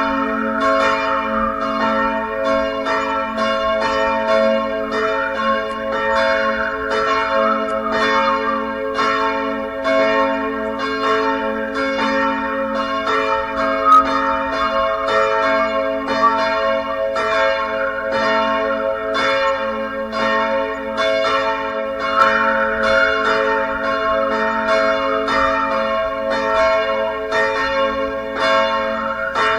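Church bells ringing a continuous peal, several bells struck in quick succession at about two to three strokes a second, their tones overlapping into one unbroken ring.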